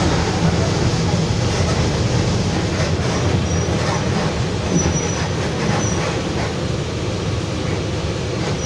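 Mercedes-Benz OF-1721 bus running, its rear differential growling very loudly over the drivetrain and road noise, with faint high squeaks coming and going midway.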